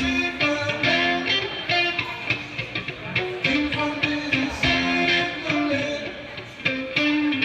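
Instrumental music: a guitar picking a melody of short notes that keeps recurring in a pattern.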